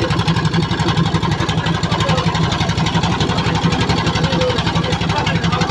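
An engine running steadily at idle, with a fast even pulse and a strong low hum.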